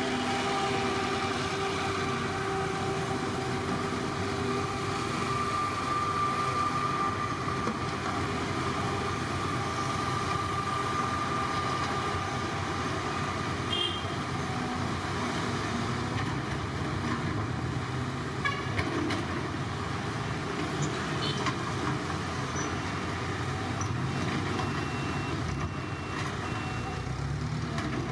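Heavy diesel construction machinery running steadily, with a high whine for several seconds in the first half and a few light clicks and knocks later on.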